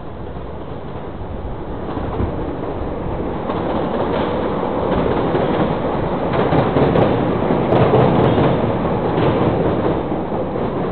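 Elevated rail train running on a steel elevated structure, a rumbling clatter of wheels on track that swells, is loudest about two-thirds of the way in, then eases off.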